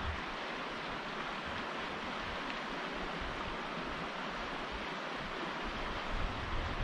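Steady rushing wind, with low gusts buffeting the microphone about six seconds in.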